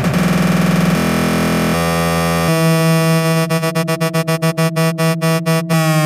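Electronic techno music in a breakdown. The bass and beat drop out about two seconds in, leaving a held synthesizer chord. From about halfway the chord is chopped into a fast, even stutter, and near the end it starts sliding down in pitch.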